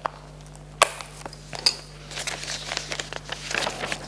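Printed paper pages being handled and leafed through: a couple of sharp clicks about a second and a second and a half in, then a run of light rustling.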